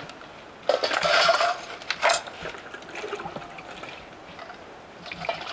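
Stainless-steel bowls and pots clattering and scraping against each other as dishes are washed by hand in basins. The loudest clatter comes about a second in, with a sharp clink at about two seconds and softer knocks after.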